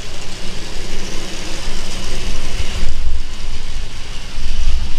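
Toy express steam locomotives running along plastic track: a steady whirring rattle of small motors and wheels over a low rumble.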